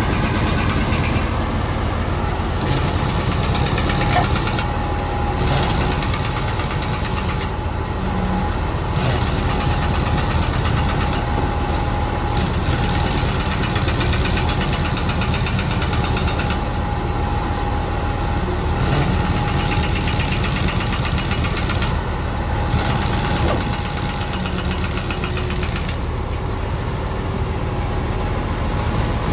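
Komatsu D85ESS-2 bulldozer's diesel engine running steadily, a low rumble with a thin steady whine through it.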